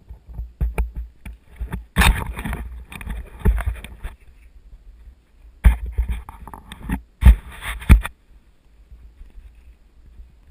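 Bumps, rustles and clunks of handling noise on a GoPro action camera as it is moved, in a string of sharp bursts with deep rumble over about six seconds, then quiet near the end.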